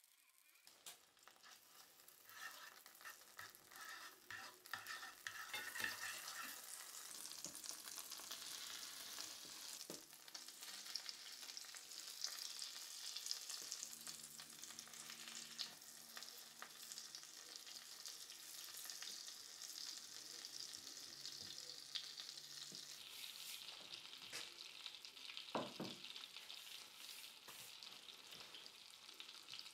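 Butter and oil sizzling in a cast-iron skillet, a steady crackling hiss that builds over the first few seconds, then floured chicken breasts frying as they are laid into the fat. A few brief knocks stand out.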